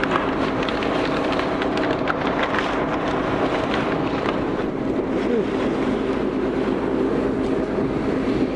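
Concrete pump and volumetric mixer truck running steadily while concrete is pumped up the boom, a constant heavy diesel hum with scattered small clicks and knocks.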